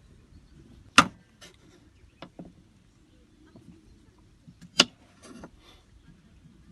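Kitchen knife cutting vegetables on a cutting board: two sharp knocks of the blade striking the board, nearly four seconds apart, each followed by a few lighter taps.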